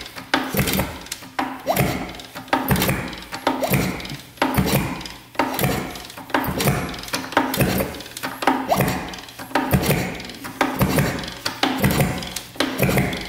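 Kick-start lever of a 1967 Yamaha YL1 being worked in repeated strokes about once a second, turning the long-seized 100cc two-stroke engine over. Each stroke sounds crunchy, and the engine is still stiff and does not fire.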